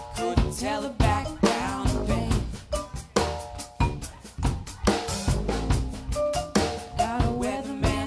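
Live band playing an instrumental passage: the drum kit is to the fore with quick, sharp snare and bass drum hits, over low sousaphone and upright bass and pitched mallet-keyboard notes.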